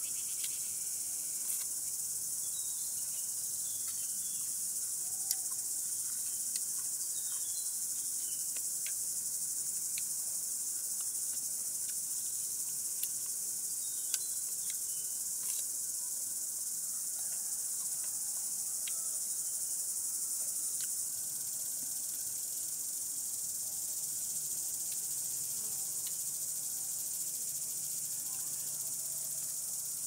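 Cicada chorus: a steady, high-pitched insect drone that holds at one level throughout, with a few brief clicks over it.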